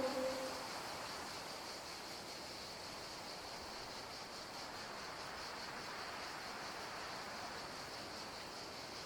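The tail of a Siats meekerorum dinosaur call sound effect, a low, pitched, drawn-out call, fades away in the first half second. Then comes a steady, faint background hiss of ambient noise with a thin high band.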